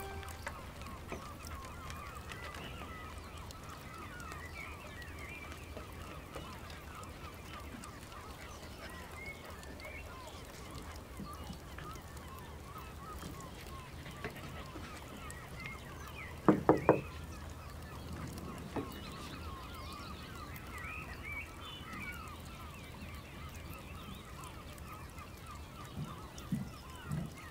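Many birds calling steadily in the background. About halfway through come three quick knocks on a glass door, followed a couple of seconds later by a fainter knock.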